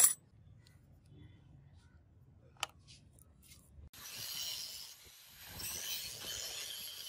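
A sharp metallic clink and a light click, then about four seconds in an angle grinder's thin cutting disc cuts into a steel bar with a hissing grind, in two passes.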